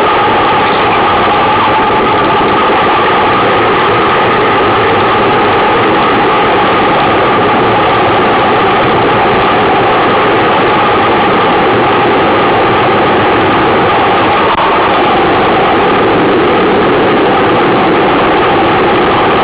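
Steady, loud rushing noise from riding a mountain bike along a gravel track: wind on the camera's microphone mixed with tyres rolling over gravel.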